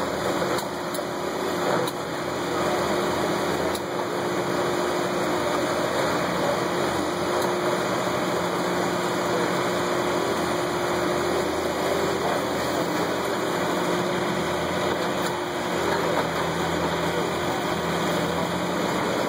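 Caterpillar 345B hydraulic excavator's diesel engine running steadily, with a few faint knocks through it.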